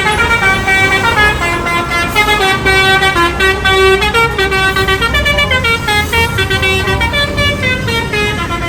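Bus 'telolet' musical horn playing a tune: a run of horn notes stepping up and down in pitch several times a second, over the low rumble of the bus.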